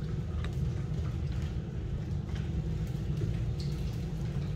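Steady low mechanical hum, with a few faint clicks from puppies at metal food bowls on a tiled floor.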